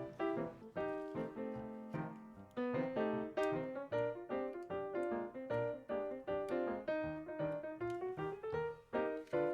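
Background piano music: a melody of plucked-sounding notes at a steady, lively pace.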